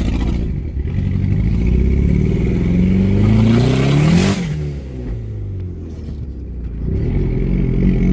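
Big-turbo 2005 Dodge SRT-4's turbocharged 2.4-litre four-cylinder engine accelerating, its pitch climbing for a couple of seconds, then dropping sharply with a brief loud hiss as the throttle closes, settling to a lower note and picking up again near the end. The owner says the engine has one bad lifter.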